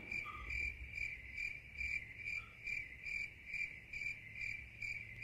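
Cricket chirping sound effect: a single high chirp repeating in a steady rhythm, about four to five chirps a second. It begins and ends abruptly, the comic 'crickets' gag edited in after a reaction.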